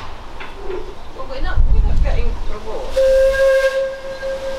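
Narrow-gauge steam locomotive whistle blowing one steady note for about a second and a half, starting about three seconds in, with a hiss of steam at its start. A low rumble comes shortly before it.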